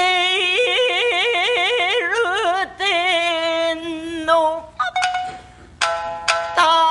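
Rōkyoku (naniwa-bushi) singing: a woman's voice holds long notes with a strong, even waver, then settles on a steadier lower note. A pause near the end is broken by a few sharp shamisen plucks before the voice comes in again.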